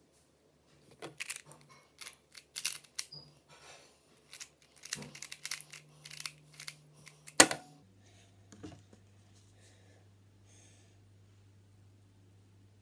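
A 2x2 speedcube being turned fast by hand, giving a quick run of plastic clicks and clacks. It ends about seven seconds in with one loud knock, after which only a faint low hum remains.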